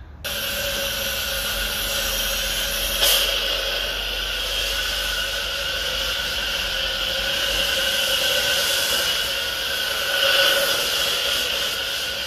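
Self-service wash bay's high-pressure foam lance spraying pre-wash foam onto a car: a steady hiss of spray with an even whine underneath, a short sharp knock about three seconds in, and a slight swell near the end.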